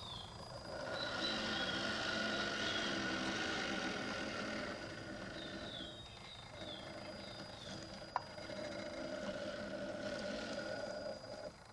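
Small electric motor and gearbox of a 1:16 WPL B24 GAZ-66 RC truck whining steadily as it crawls slowly, with birds chirping in short falling notes now and then.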